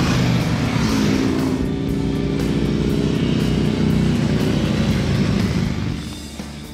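A group of motorcycles riding past close by, their engines loud for about six seconds and then fading away near the end, with background music under it.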